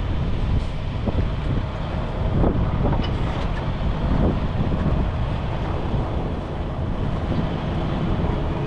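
Heavy diesel truck engine running steadily, with wind buffeting the microphone.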